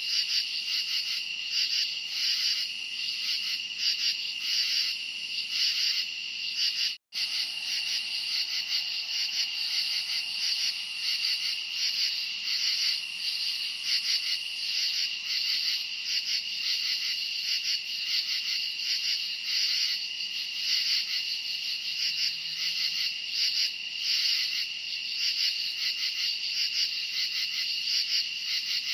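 A dense chorus of crickets chirping in a steady, fast pulsing trill. About seven seconds in, the sound cuts out completely for a split second.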